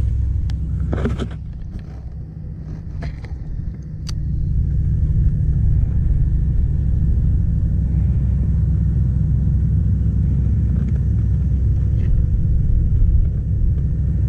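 Wind buffeting the microphone: a steady low rumble that eases for a couple of seconds near the start and then holds.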